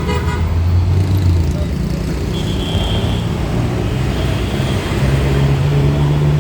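Road traffic: a motor vehicle's engine running close by, its low pitch shifting higher about five seconds in, with a short high horn toot about two and a half seconds in.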